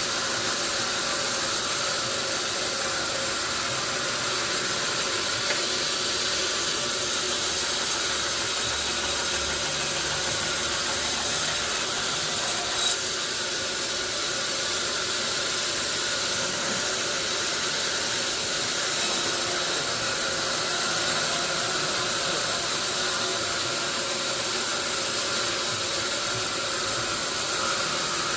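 Sawmill machinery running steadily, a constant mechanical hiss and hum, with a brief knock about thirteen seconds in.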